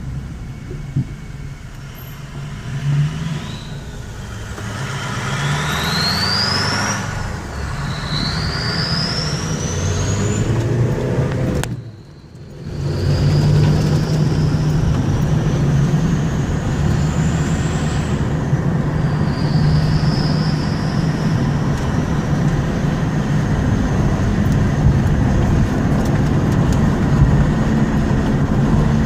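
Ford F350 turbodiesel under acceleration, its turbocharger whistling high over the engine. The whistle climbs in pitch with each pull and drops back between them, about five times, with a brief lull about twelve seconds in.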